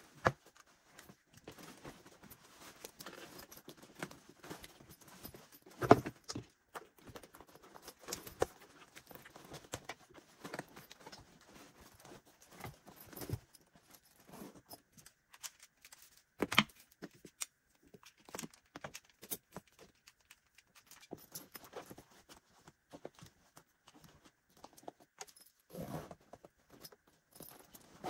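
Packing a nylon duffel bag: fabric rustling and the clinking of metal zipper pulls and buckles as it is handled and zipped, with a few louder knocks, the loudest about six seconds in and another about halfway through.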